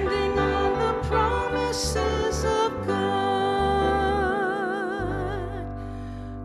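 The final line of a hymn sung with instrumental accompaniment, a woman's voice leading into a microphone. The last word is held on one long note with a wide vibrato for about two and a half seconds, and then the music fades away.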